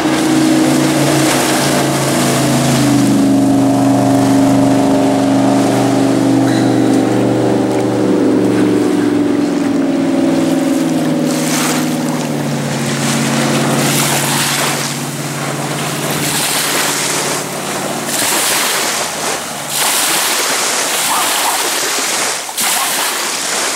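Jet boat engine running at planing speed as the boat passes, its pitch sinking slightly as it moves away. About eighteen seconds in the engine fades and the boat's wake washes up onto the sandy shore.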